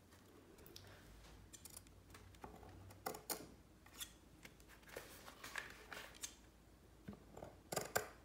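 Sharp scissors snipping short slits through lampshade fabric and its sticky-back plastic backing, a scatter of quiet, crisp snips and clicks.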